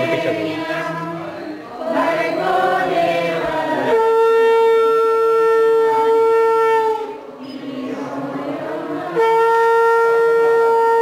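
Voices chanting together, then a conch shell blown in two long, steady notes: one of about three seconds starting about four seconds in, and another starting near the end.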